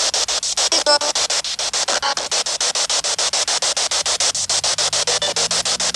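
Spirit box sweeping through radio stations: loud hissing static chopped about eight times a second, with a brief snatch of a pitched radio fragment about a second in and a faint low hum coming in near the end.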